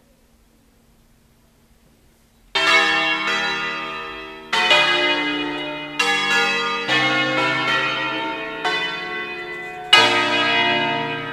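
Church bells of an eight-bell set in B-flat (Pruneri 1909, with three Ottolina 1948 bells), swung mouth-up on their wheels and struck by their clappers, ringing out a festive concerto. After about two and a half seconds of quiet, about six strokes on different bells follow at uneven intervals, each left ringing to fade under the next.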